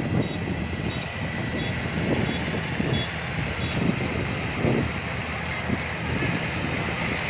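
Combine harvester's diesel engine running steadily with its threshing machinery, a steady high whine over a low hum. Short high beeps, like a reversing alarm, repeat in the first second or so.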